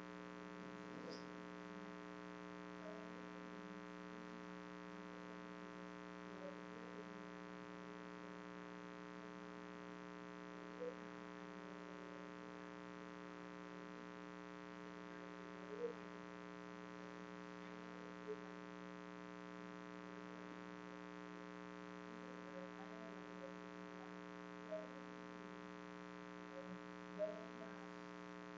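Steady electrical mains hum in the sound system: a buzz with many evenly spaced overtones. Under it a faint, distant voice reads aloud off-mic, with a few soft knocks.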